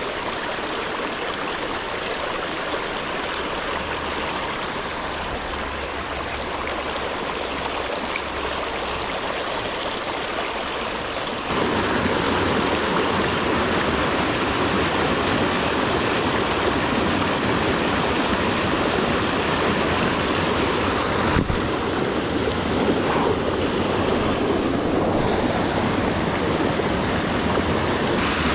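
Small rocky creek running over stones, a steady rush of water. About a third of the way in it abruptly gets louder and fuller as the sound becomes the churning white water of a small cascade.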